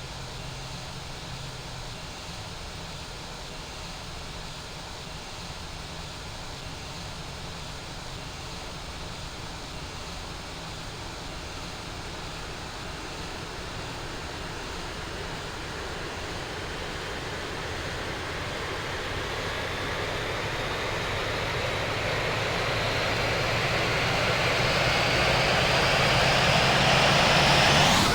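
Boeing 737-700's CFM56-7B turbofan spooling up during engine start: a rising whine that grows steadily louder through the second half.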